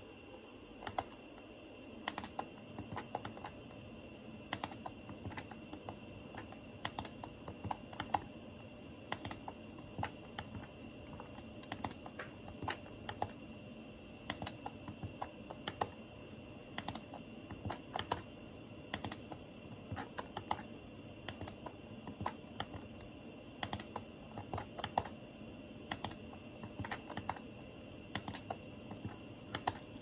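Light plastic clicks of buttons being pressed on a Daikin wired air-conditioner remote controller, several a second in uneven clusters, as the menu cursor is stepped through a list. A faint steady high whine sits underneath.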